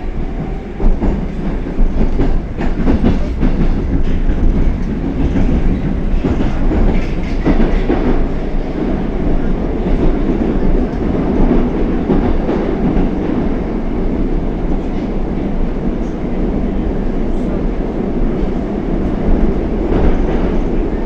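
Moscow Metro train of the Oka type (81-760/761) running along the track, a steady loud rumble of wheels on rail with clicks and clatter over rail joints in the first several seconds.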